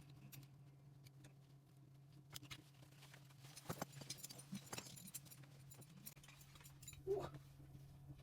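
Faint scattered clicks and light rustling from handling something, a few seconds apart, over a steady low hum.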